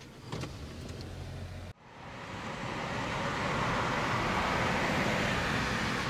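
Car moving in city traffic, heard from inside the cabin: engine and road noise. A low engine hum cuts off about two seconds in, and the road noise that follows swells to its loudest midway, then eases slightly.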